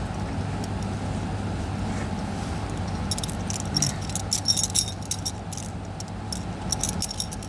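Metal clicking and scraping as a jump-pack cable connector is pried out of its mount with a tool. A cluster of sharp clinks comes in the second half, over a steady low hum.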